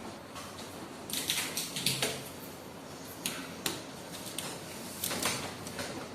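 Irregular clicks, taps and rustles of parts being handled, in small clusters with short pauses between them.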